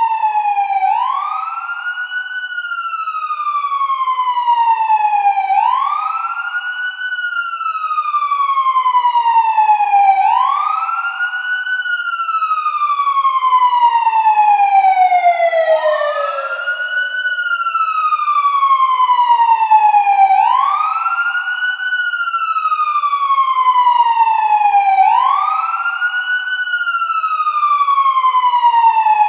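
Police siren in wail mode: a single tone sweeps up quickly, then falls more slowly, over and over, roughly every four to five seconds.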